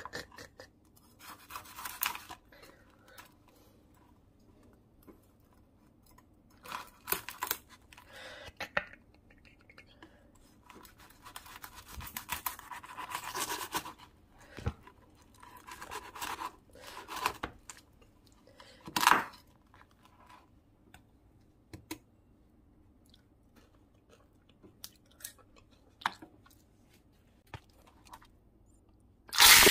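A knife crunching through the crisp crackling of deep-fried pork belly on a wooden cutting board, in separate bursts of a second or two with quiet pauses between. At the very end a loud frying hiss cuts in.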